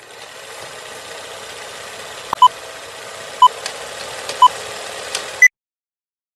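Film-leader countdown sound effect: a steady hiss with scattered clicks and crackles, and a short beep once a second, three at one pitch and then a fourth at a higher pitch. The sound cuts off suddenly right after the last beep.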